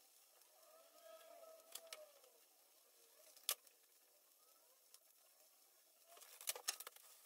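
Near silence with a few faint clicks and taps from hands working roasted poblano chiles, peeling off the skin and seeds. A short cluster of clicks comes near the end, and a faint tone rises and falls about a second in.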